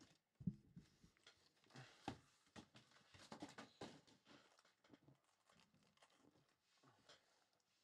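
Faint, irregular knocks and rustles of shrink-wrapped cardboard card boxes being lifted and stacked by hand, with a sharper knock about half a second in and the handling thinning out in the last few seconds.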